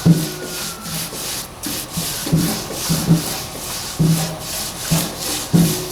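Repeated rubbing and scraping strokes, about two a second, as epoxy putty is pressed and smeared hard into corroded pits on the bottom of an aluminum gas tank.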